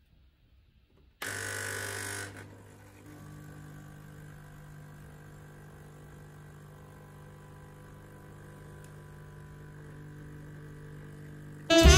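DeLonghi ECP 33.21 espresso machine's vibratory pump starting about a second in, loud and hissy for about a second, then settling into a steady lower buzzing hum as it forces water through an ESE coffee pod in the pressurised filter. Music comes in just before the end.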